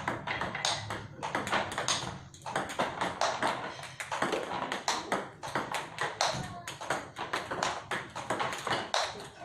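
Table tennis balls being hit with paddles and bouncing on the table in quick succession during a multiball drill: sharp clicks, several a second.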